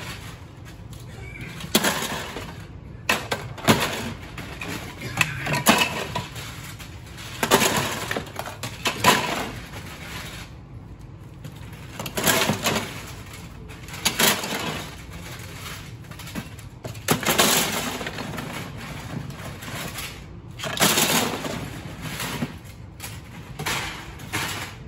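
LEGO base plates clattering and clacking as they are handled and dropped into plastic bins, with some rustling in between. The clatters come in irregular bursts every second or few seconds.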